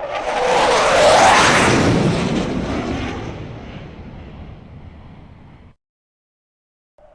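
F-16 fighter jet flying past. The loud jet rush builds quickly, peaks about a second in with its pitch sweeping downward as it passes, then fades away. It cuts off suddenly a little before the end, leaving silence.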